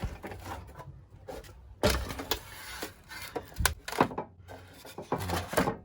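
Objects being handled and put down: several sharp knocks and clunks, with a short scraping rattle about two seconds in.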